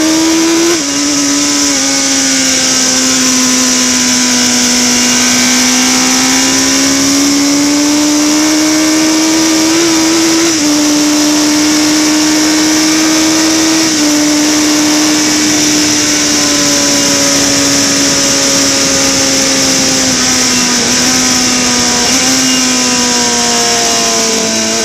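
Onboard sound of a mid-1980s Harris Yamaha racing motorcycle's engine running at high revs, holding a steady note with a few brief dips in pitch, over a constant rush of wind on the microphone.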